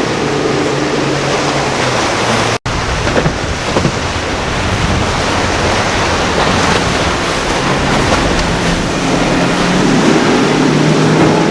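Motorboat engines running with waves and surf breaking, and wind on the microphone. The sound cuts out for an instant about two and a half seconds in.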